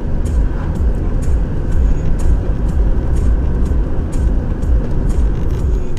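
Steady low rumble of a moving vehicle's engine and road noise, with a light regular ticking about twice a second.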